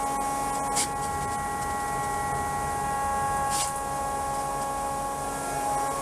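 A steady pitched hum with a ladder of evenly spaced overtones, and two brief hissing whooshes, one about a second in and one a little past the middle.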